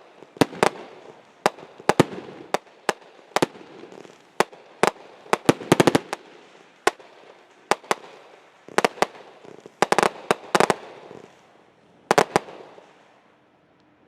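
Fireworks going off: an irregular string of sharp bangs and cracks, some coming in quick clusters, with crackling between them, dying away near the end.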